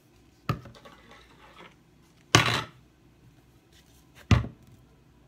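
Kitchen items, a plastic bowl with a spoon and plastic sauce and jelly bottles, set down one at a time on a wooden desk: three short knocks, about half a second in, in the middle and near the end, the middle one loudest.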